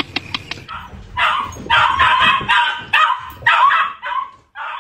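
A dog barking and yipping in a quick run of short, high-pitched calls, about two a second.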